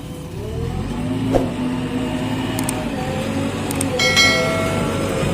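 JCB 3DX backhoe loader's diesel engine running under hydraulic load, its pitch drifting up and down as it works. A short knock comes about a second and a half in, and a louder metallic clank with ringing near the end.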